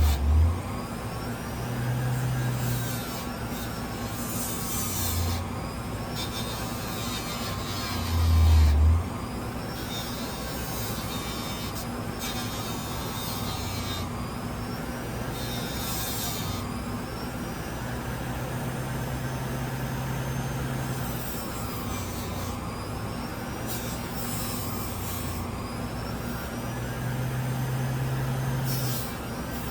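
Central Machinery bench grinder running steadily with a fiber wheel as the knife's bolster is polished on it. The motor hums throughout, and short bursts of high hiss recur every few seconds as the metal is pressed to the wheel. Low bumps come at the very start and about eight seconds in.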